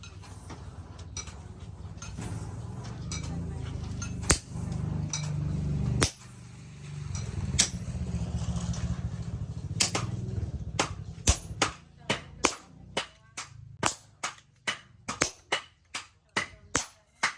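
Hand hammer striking hot steel on an anvil while forging a knife blade: a few single blows over a low steady rumble, then from about two-thirds of the way in a quick run of sharp blows, about two to three a second.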